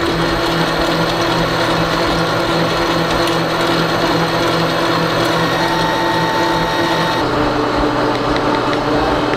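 Concrete mixing pump's electric motor running with a steady hum over mechanical noise. About seven seconds in it gives way abruptly to a different steady machine hum.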